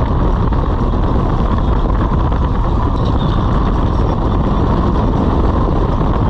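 Motorcycle running at cruising speed on the road: a steady engine rumble mixed with wind and road noise.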